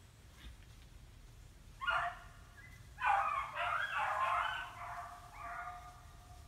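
Hound baying while running a scent trail: a short cry about two seconds in, then a long, loud run of drawn-out bawling that fades into a weaker cry near the end.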